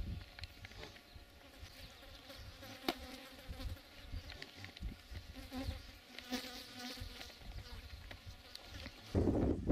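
Flying insects buzzing steadily close by, over a low rumble of wind on the microphone. A strong gust of wind hits the microphone about nine seconds in.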